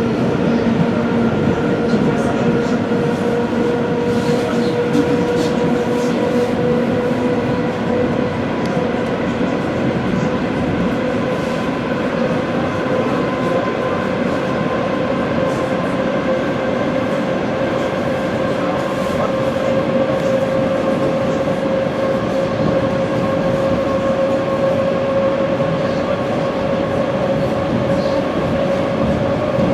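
ED4M electric multiple unit running between stations: a steady whine from its traction motors and gearing, rising slowly in pitch as it gathers a little speed, over continuous wheel rumble with faint clicks from the rails.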